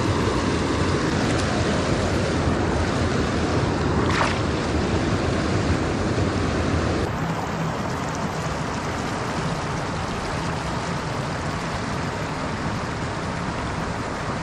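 Steady rush of river water running over shallow rapids and rock ledges. About seven seconds in, the sound steps down a little in level.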